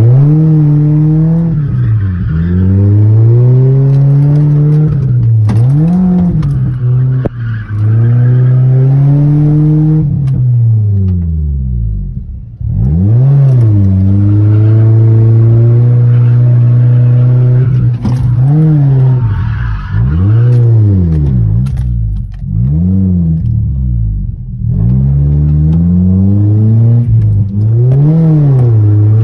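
Car engine heard from inside the cabin, revving hard up and down over and over as it is driven, with its pitch rising and falling repeatedly and a couple of short lifts off the throttle.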